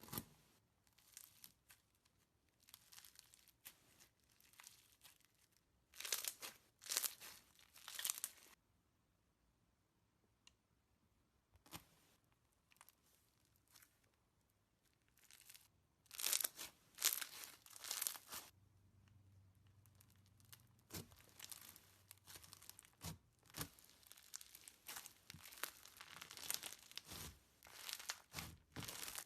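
Slime being pressed and worked by hand, crackling and crunching in bursts with short quiet gaps between; the loudest bursts come about six seconds in and again about sixteen seconds in.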